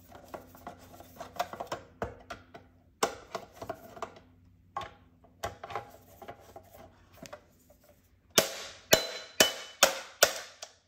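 Phillips screwdriver working screws inside a plastic router housing: small clicks, scrapes and taps. About eight seconds in come loud, sharp knocks, about two a second, as the housing is handled and knocked to slide out the stuck inner heatsink assembly.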